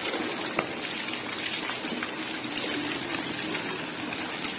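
Fish pieces sizzling and crackling as they deep-fry in hot oil in a wok, a steady bubbling hiss with a single click about half a second in.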